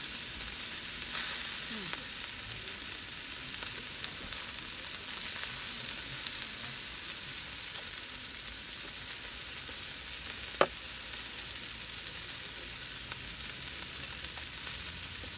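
Yakiniku meat sizzling in a small pan on a portable burner, a steady frying hiss. Tongs tick against the pan now and then, with one sharp click about ten seconds in.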